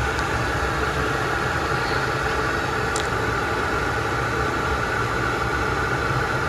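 Steady mechanical hum and hiss, with a brief faint tick about three seconds in.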